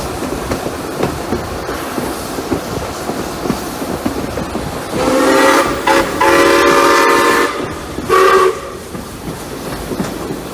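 Steam locomotive whistle sounding one long blast, broken briefly just after it starts, then a short blast. Underneath is the steady running noise and wheel clicks of the train from on board.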